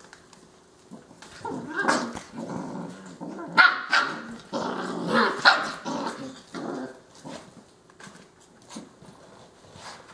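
A mother dog and her six-week-old puppies growling and barking while play-wrestling. It starts about a second in, is loudest in the middle with a few sharp barks, and tapers off after about seven seconds.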